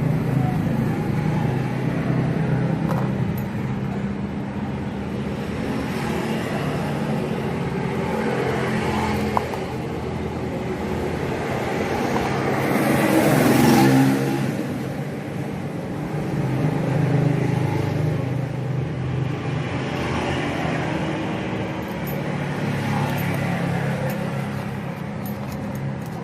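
A motor vehicle engine running steadily in the background, with a louder swell about 13 seconds in, like a vehicle passing.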